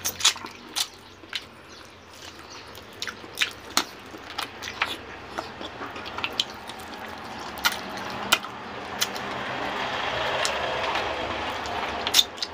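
Close-up eating by hand: wet lip smacks, chewing and finger-sucking on soft braised chicken and rice, in sharp irregular clicks. A rushing background noise swells through the second half and is loudest near the end.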